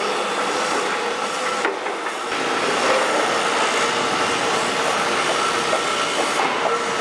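Old 1960 Demag harbour crane travelling along the rails of its gantry bridge: a steady rumble of steel wheels on rail, with a whine and a little squeal from the travel gear.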